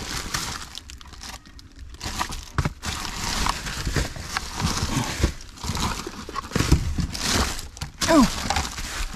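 Plastic bags and food packaging crinkling and rustling as a gloved hand digs through a dumpster of discarded produce, with small knocks of items shifting. A short voice sound near the end.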